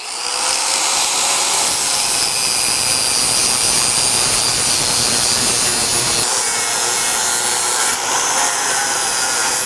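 Electric angle grinder winding up, then grinding plasma-cut slag off the edge of a steel exhaust flange with a steady, harsh grinding noise.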